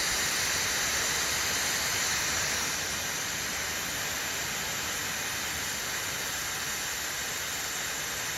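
Dreame Gleam high-speed hairdryer running, a steady rush of blown air that drops slightly in level about three seconds in.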